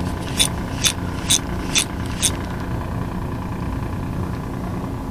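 An engine running steadily with a low hum. Five sharp clicks come about two a second in the first half.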